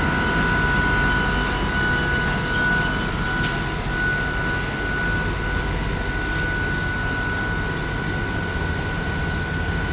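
Automatic tablecloth sewing machine running: a steady motor hum with two high whining tones held throughout, and a couple of faint ticks.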